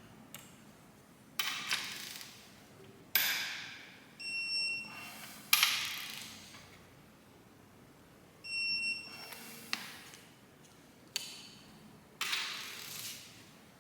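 Sharp metallic clacks, about six, and two short electronic beeps while Cummins 6BT cylinder head bolts are turned through the final 90-degree torque step. The beeps are typical of a digital torque-angle wrench reaching its target angle.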